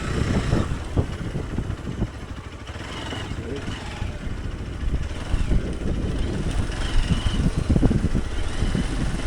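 Hero Xpulse 200 Pro motorcycle riding downhill over a rough dirt track: a low engine note under an uneven rumble and knocking of the tyres and suspension over bumps.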